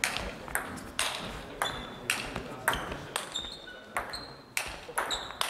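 Table-tennis rally: the ball clicking sharply off the bats and the table, about two to three hits a second, some hits with a short ringing ping.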